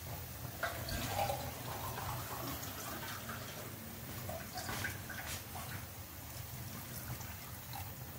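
Water trickling and splashing, with scattered light clinks and knocks of kitchen handling, as water is readied to add to a pan of sautéed vegetables. A steady low hum runs underneath.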